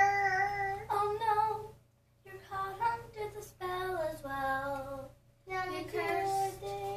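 A child singing unaccompanied in long held notes, in about four short phrases with brief pauses between them.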